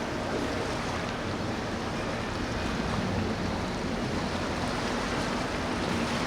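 Steady rush of water and surf with wind noise, an even wash of sound with no distinct events, under a faint low steady hum.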